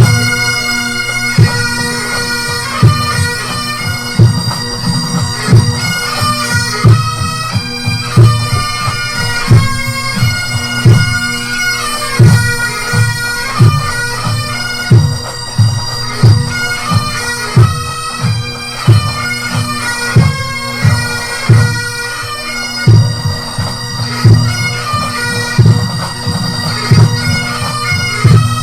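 Pipe band playing a march: bagpipes carry the tune over a steady drone, with a bass drum beating a regular marching time.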